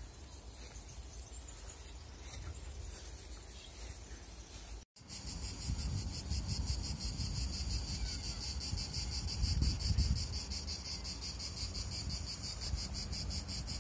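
Crickets chirping: a high-pitched trill pulsing at a rapid, even rhythm. It drops out briefly about five seconds in and comes back louder.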